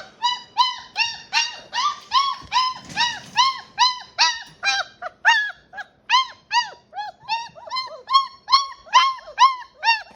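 Great Dane puppy whining, a steady string of short cries, each rising and falling in pitch, about three a second.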